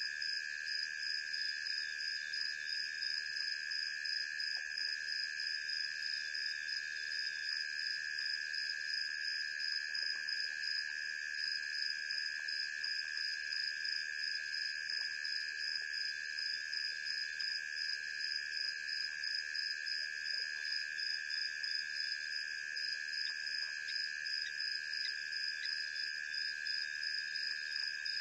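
Night chorus of crickets or similar insects trilling steadily at several high pitches at once, the highest a fast, fine pulsing, with no breaks.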